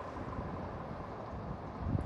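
Wind buffeting the microphone over the steady low rumble of a vehicle.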